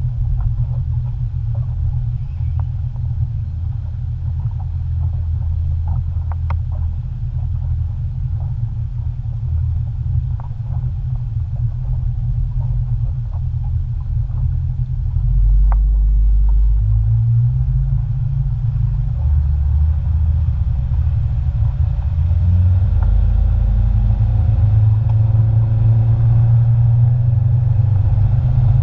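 Motorboat engine running under way, with a heavy low rumble of wind and water on the boat-mounted microphone. About halfway through it grows louder and the engine pitch climbs in steps as the boat is throttled up.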